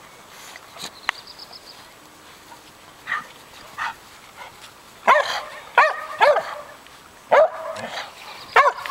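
A dog barking in short, high-pitched play barks, about five of them in the second half, while dogs tussle together.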